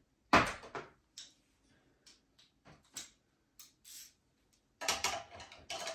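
Metal sockets and a ratchet handled over an open socket-set case: a sharp clack about half a second in, then a scatter of light ticks and clicks, busier near the end.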